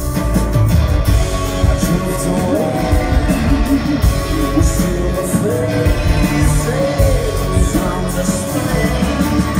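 Live rock band playing a song, electric and acoustic guitars under a man's sung vocal line.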